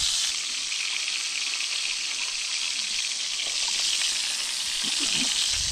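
Carne de sol (salted, sun-dried beef) frying in hot margarine in a pan: a steady sizzling hiss with fine crackle.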